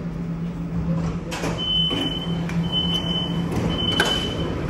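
A tram's sliding-door warning beeper sounds three long, high beeps of about a second each as the doors operate for boarding. A steady low hum runs underneath, with a knock near the end.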